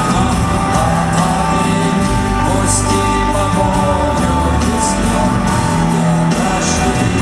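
Rock band playing loudly and steadily, with singing.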